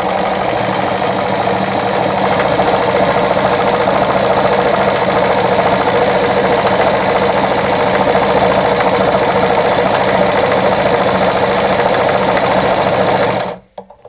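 Straight-stitch sewing machine fitted with a zigzag attachment foot, running steadily at speed while sewing a zigzag seam through fabric. It stops abruptly near the end.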